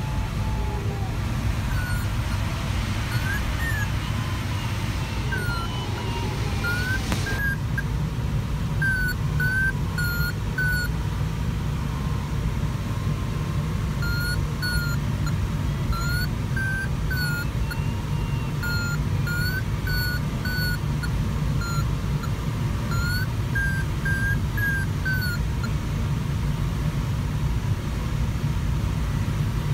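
Electronic audio variometer beeping short, high chirps in quick runs, each bending slightly up or down in pitch, the tone a glider vario gives when climbing in lift. Under it, a steady low rush of airflow around the Sparrowhawk ultralight glider's cockpit.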